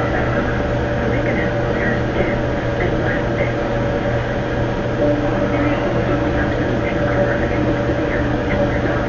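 Steady hum with a constant tone under dense noise, with faint, indistinct voice-like fragments in it, from a microphone recording run through a voice-isolation filter.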